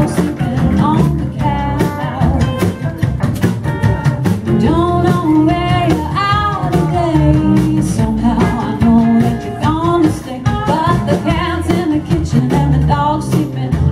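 Live band music: a woman sings lead over her strummed acoustic guitar, with a second guitar and drums.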